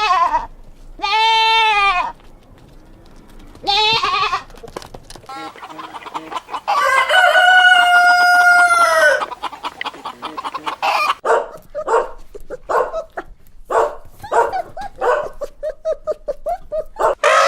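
Chickens: a rooster crowing, with one long crow lasting over two seconds, followed by a run of quick, short clucks from hens.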